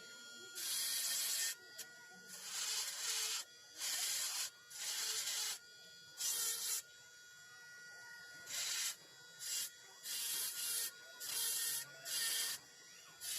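Repeated abrasive strokes of a hand tool rubbing over a wooden carving, about a dozen of them, each under a second long, with short irregular pauses between.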